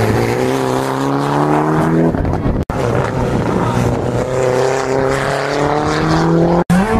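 Rally car engine accelerating hard past, its pitch climbing steadily; it cuts off abruptly about two and a half seconds in, and a second rally car's engine then accelerates the same way, cut off again near the end.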